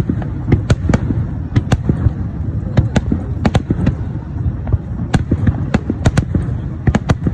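Fireworks display: an irregular, rapid run of sharp bangs and crackles, several a second, over a continuous low rumble.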